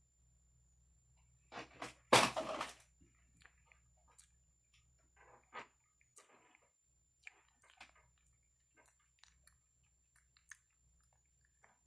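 Java macaques grooming a person's face and hair at close range: soft scattered clicks, smacking mouth sounds and fur rustles, with one louder rustle about two seconds in.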